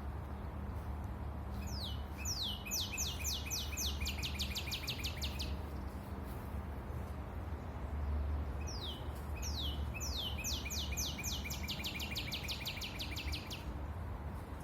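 A songbird singing twice, each song a fast series of about a dozen sharp, falling notes lasting roughly four seconds, the first starting about two seconds in and the second about nine seconds in. A steady low rumble lies underneath.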